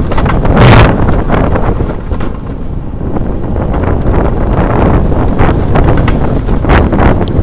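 Alpine coaster sled running fast down its steel-tube rails: a continuous rumble and rattle from the track, mixed with wind buffeting the microphone. There is a louder rush of wind a little under a second in.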